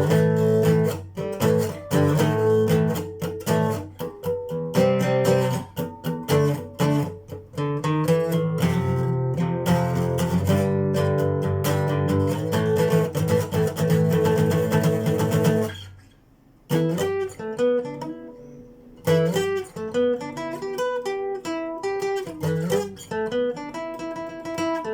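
Phill Pro acoustic guitar played solo: full strummed chords, then after a brief pause about two-thirds of the way through, quieter picked single notes and arpeggios.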